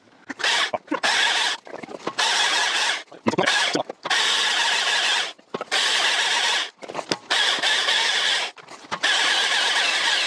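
STIHL MSA 300 battery chainsaw on its full-power setting, cutting through logs in a string of short cuts, each about a second long, with brief gaps between them.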